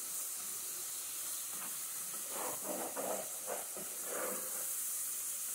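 Chopped onion frying in oil in a metal pot, a steady sizzle, while it is browned. In the middle there are several strokes of a plastic spatula stirring and scraping across the pot's bottom.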